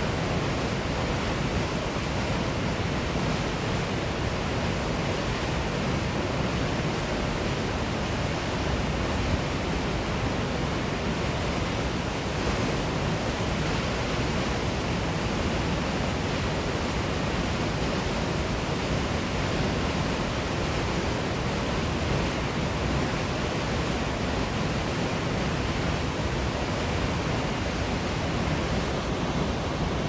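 Waterfall: a heavy flow of water plunging over a cliff lip into a pool, a steady, unbroken rushing with no change in level.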